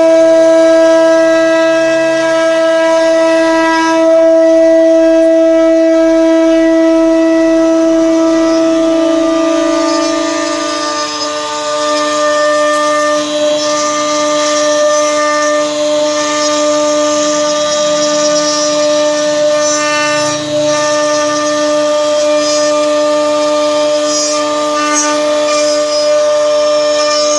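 CNC router spindle running at high speed while it engraves a wooden door, a loud steady whine. Its pitch drops slightly about eleven seconds in and then holds, with a faint hiss and a few light ticks under it.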